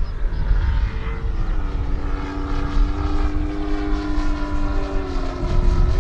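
Nitro engine and propeller of a radio-control aerobatic airplane in flight. Its pitch climbs after about a second and a half, holds steady, then drops near the end.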